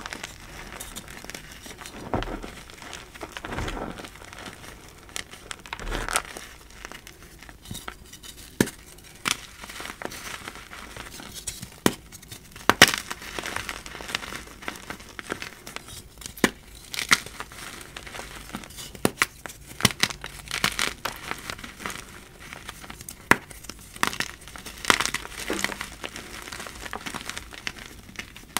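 Dyed blocks of gym chalk crushed and crumbled by hand into a pile of chalk powder and chunks: irregular crunches and crackles, some sharper snaps among them.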